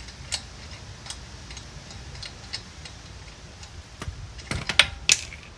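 Small metal tools and parts being handled, giving scattered light clicks, with a few sharper metallic clinks about four and a half to five seconds in.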